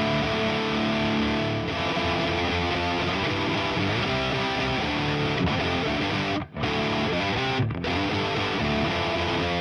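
Distorted electric guitar riffing on a 1980 Gibson Les Paul Custom with stock T-Top humbuckers, through a Diezel VH4 amp head and a Marshall 4x12 cabinet with Celestion Vintage 30 speakers. The playing is continuous except for a brief stop about two-thirds of the way through and a shorter break a second later.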